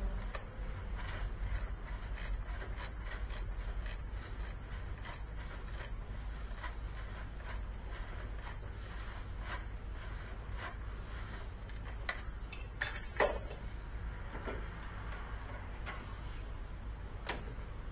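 Irregular small metallic clicks and clinks from hand work on a riding lawn tractor's battery and terminal hardware, with a brief louder clatter about two-thirds of the way through. A steady low hum runs underneath.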